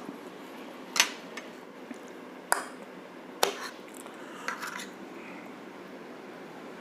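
Cutlery clinking against a plate during eating, with about four sharp clinks spread a second or so apart.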